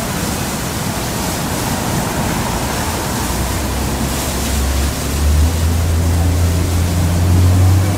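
Steady rushing noise like wind or moving air, with a low hum that comes in about three seconds in and steps up in pitch and gets a little louder about two seconds later.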